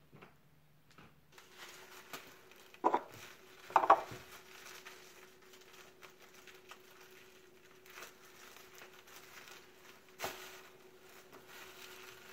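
Quiet handling noise as a small plastic bag is rustled over a kitchen counter, with two louder knocks about three and four seconds in and a sharp click near the end, over a faint steady hum.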